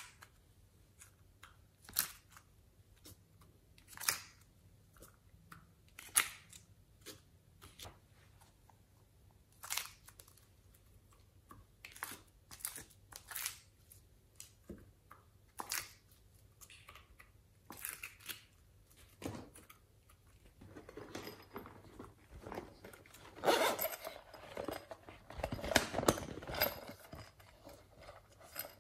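Soft, scattered clicks and taps, one every second or two, as clay hearts are handled in soft plastic molds and set down in a glass tray. From about 21 seconds in the handling noise grows denser, a run of crackly rustling and taps.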